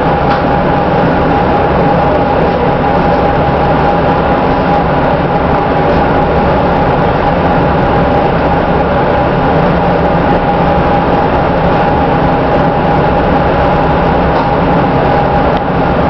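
Amtrak passenger train running at speed, heard from inside the passenger car: a loud, steady rumble of wheels on rails with a thin steady whine running through it.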